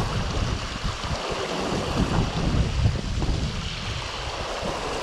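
Rushing water of a rocky mountain creek's riffles, with gusts of wind buffeting the microphone in uneven low rumbles that ease off near the end.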